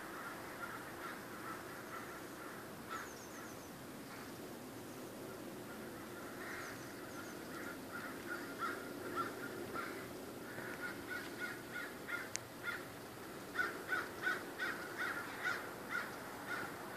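A flock of crows cawing, many harsh calls overlapping: these are mobbing calls aimed at a raptor. The calls are sparse at first and grow thicker and louder in the last few seconds.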